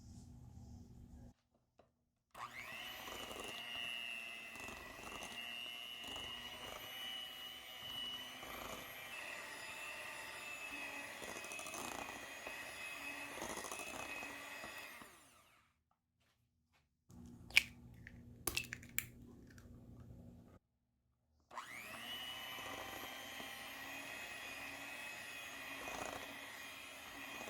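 Electric kitchen mixer motor spinning up and running with a steady whine for about thirteen seconds, then stopping. A quieter stretch with a few sharp clicks follows, then the mixer spins up and runs again.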